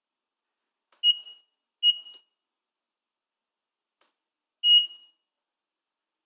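Arduino-driven buzzer giving three short high beeps at one pitch, two in quick succession and a third about three seconds later, as feedback to presses of the push button, with faint clicks of the button between.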